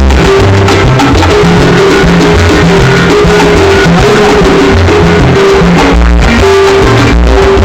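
Loud instrumental salsa music with bass, percussion and maracas, played at high volume for a sound check on a rental PA system.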